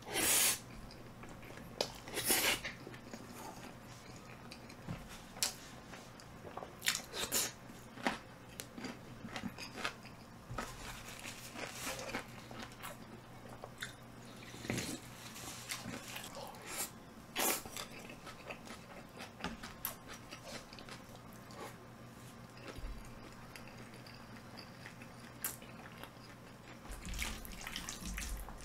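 Close-up eating sounds of a person chewing a spicy rice-cake (tteokbokki) and chicken dish: wet chewing and biting with scattered clicks and smacks, a few louder bursts in between.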